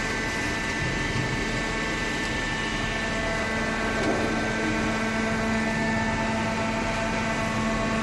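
Hydraulic cardboard baler running: the electric motor and hydraulic pump give a steady machine hum with a few constant tones.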